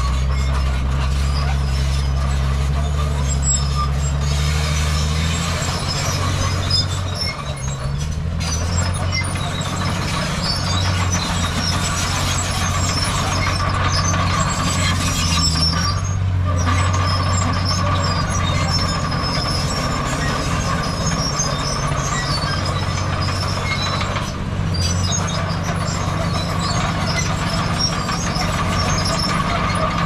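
Heavy diesel earthmoving machinery working: a bulldozer and dump truck engines running under load, their note shifting a few times, with a steady high whine and metallic rattle over them.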